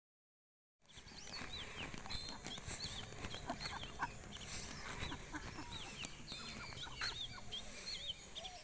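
Birds chirping and calling: many short, quick chirps over a quiet outdoor background, starting about a second in.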